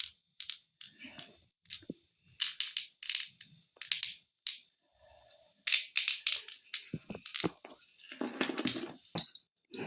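Fidget toy being squeezed and played with by hand, making a string of short, irregular crackling and crunching noises, with a longer, fuller crunch near the end.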